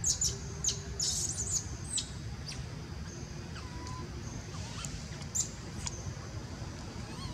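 Young macaques squealing: a quick run of short, very high-pitched squeaks in the first two seconds, then a few scattered ones, over a steady low rumble.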